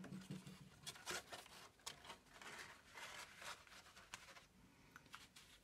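Faint rustling and scraping of a cut-paper layer being turned over and slid down into a paper shadow-box frame, with a few brief sharper rustles.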